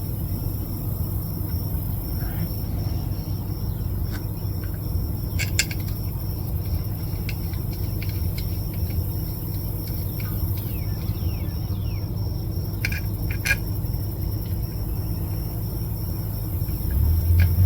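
Steady low background rumble with a constant thin high tone, broken by a few light clicks and taps of diesel heater parts being handled and fitted, twice in quick pairs.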